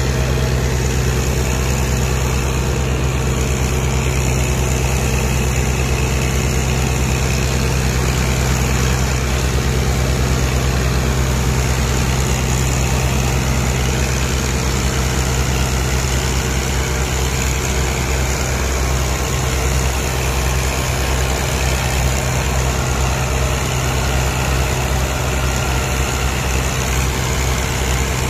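Ford 3610 tractor's three-cylinder diesel engine running steadily under heavy load, hauling a loaded sugarcane trolley. Its low note throbs more noticeably in the second half.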